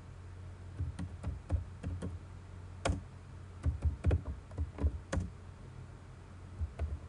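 Computer keyboard being typed on: a string of irregular key clicks, with a pause of about a second and a half near the end.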